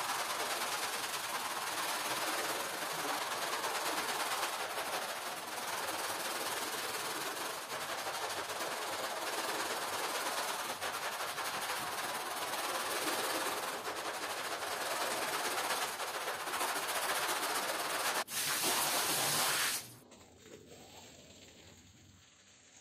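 Hand scrub brush scrubbing a wet, foam-covered rug, a dense, steady scrubbing noise of bristles working through suds, played sped up. About twenty seconds in it breaks off suddenly, leaving a much quieter sound.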